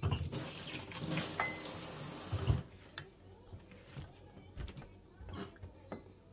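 Kitchen tap running in a full hiss for about two and a half seconds, starting and stopping abruptly, with a thump just as it is shut off. Small clicks and knocks follow.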